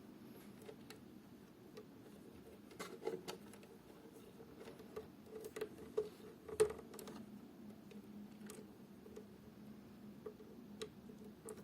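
Irregular faint clicks and ticks over a steady low hum. The clicks come in small clusters, loudest about three seconds in and again around six to seven seconds in. This is the stray noise the device is being recorded for.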